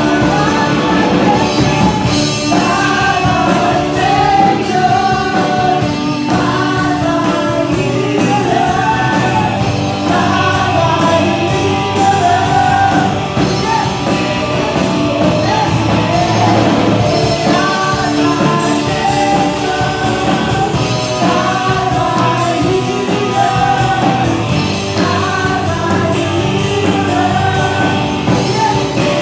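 Live praise-and-worship music: a woman singing lead into a microphone over electric guitar and bass guitar, with a steady beat.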